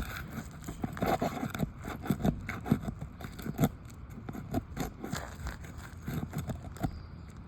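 Hand tools scraping and tapping against asphalt shingles as a roofer works nails loose under them: a run of short, irregular scrapes and clicks.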